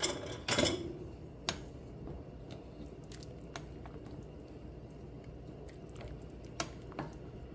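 Wooden spoon stirring a stainless steel pot of pozole, pork and hominy in red chili broth: a soft, wet squishing with faint scattered taps. Two sharper knocks about half a second apart come right at the start.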